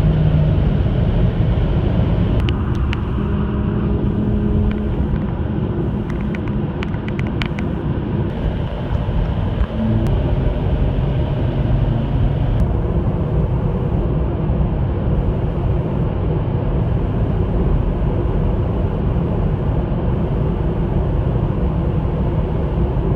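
Car driving at motorway speed, heard from inside: a steady, loud rumble of tyres, wind and engine, with a few faint clicks in the first several seconds.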